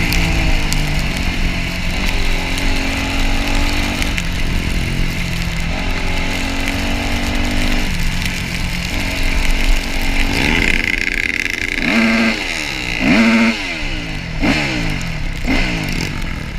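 Yamaha YZ250F dirt bike's single-cylinder four-stroke engine running at a steady pace, then revved up and down in about five quick blips from around ten seconds in.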